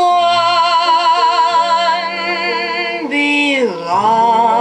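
A recorded vocal song played back through a single-ended 6P25 (EL33-type) valve amplifier and loudspeaker. A singer holds a long note with vibrato over sustained accompaniment, then slides down in pitch a little after three seconds into a new note.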